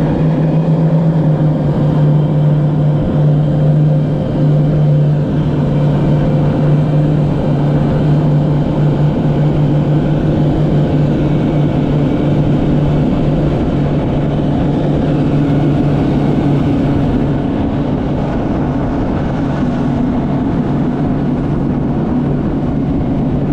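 Motorboat engine running steadily under way, a constant low drone over rushing noise.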